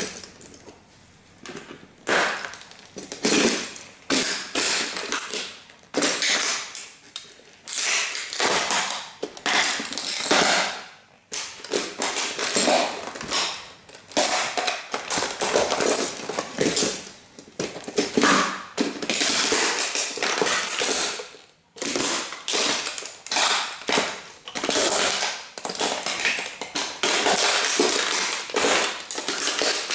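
Chunky-soled platform boots pressing down on and stomping a model Bugatti toy car, its body cracking and creaking under the weight and broken pieces rattling. It comes in irregular bursts with short pauses between them.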